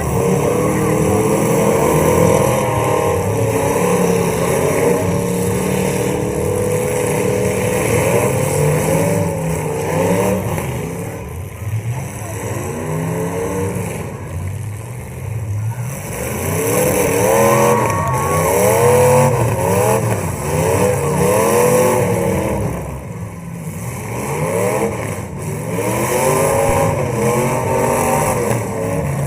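Full-size demolition derby cars' engines running. There is a steady engine drone for the first several seconds, then engines revving up and down over and over.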